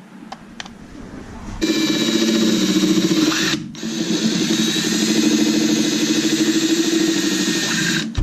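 Electric drill running steadily at a constant pitch, starting abruptly about a second and a half in, dropping off briefly near the middle, then running on.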